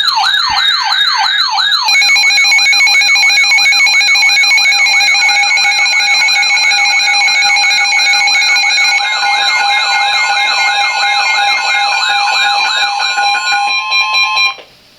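Emergency Alert System alert tone: a loud, siren-like tone sweeping down in pitch about three times a second, joined about two seconds in by several steady tones. It cuts off abruptly near the end, just before the spoken severe thunderstorm warning.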